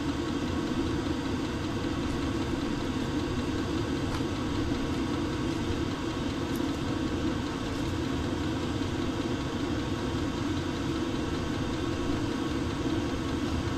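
An engine idling steadily nearby: an even, unchanging hum that runs without a break.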